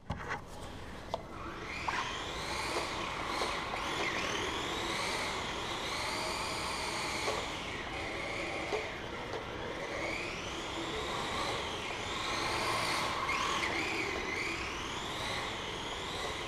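Battery-powered RC car's electric motor whining, the pitch rising and falling over and over as it speeds up and slows down, with a few sharp clicks and knocks; the car is running on a low battery.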